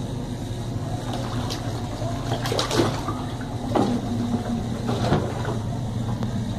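Colormaq Pioneer tub washer running: a steady motor hum while the agitator churns soapy water, with a few louder knocks and sloshes in the middle.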